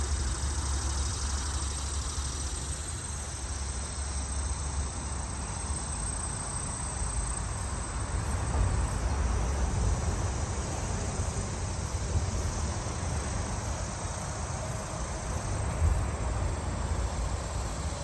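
Outdoor summer ambience: insects chirring steadily over a constant low rumble.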